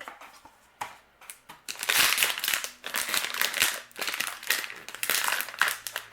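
Small toy mystery box being opened by hand: a few light clicks, then from about two seconds in a steady run of packaging crinkling and tearing.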